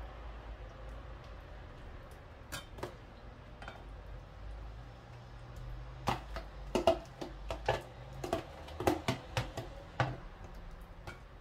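Tomato sauce being tipped and scraped out of a plastic food container into a glass baking dish: a run of clicks and knocks, sparse at first and busiest in the second half.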